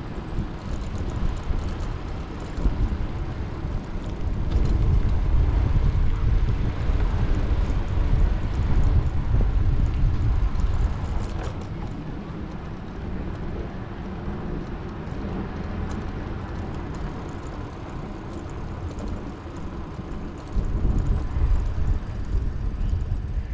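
Uneven low rumble of wind and road noise while riding along, loudest for several seconds from about four seconds in and again near the end. A brief thin high tone sounds near the end.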